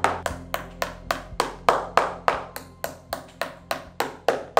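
A hammer driving the tacks that hold a taiko drum's cowhide head, struck in a quick even rhythm of about three to four blows a second, each blow ringing briefly through the drum body.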